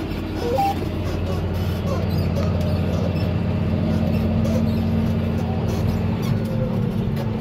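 John Deere tractor's engine running steadily under load, heard from inside the cab, as it pulls a Jeantil manure spreader that is throwing muck.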